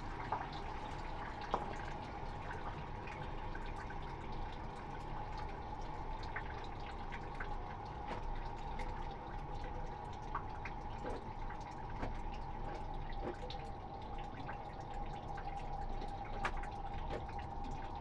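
Water running steadily from a shower head laid in a plastic washing basin, filling it, with scattered drips and small splashes.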